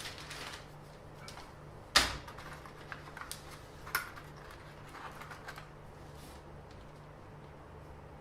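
Scattered clicks and knocks of objects being handled, the loudest a sharp knock about two seconds in, with smaller taps around three to six seconds.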